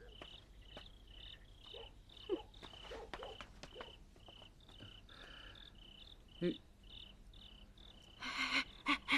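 Crickets chirping steadily, about three short chirps a second, as a night-time ambience. Near the end there is a short, louder burst of noise.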